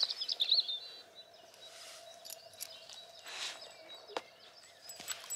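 Songbirds chirping in the background, most busily in the first second, over a faint steady hum, with a couple of light clicks near the end.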